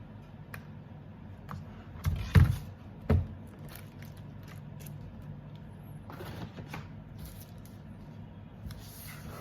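A mechanical keyboard and its keycaps being handled: a few scattered clicks, two loud knocks about two seconds in and another a second later, and brief rubbing sounds, over a steady low hum.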